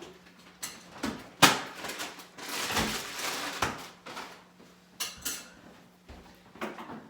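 A series of sharp knocks and clunks, the loudest about a second and a half in, with a longer scuffing sound in between, as a refrigerator is shifted and fitted into its place.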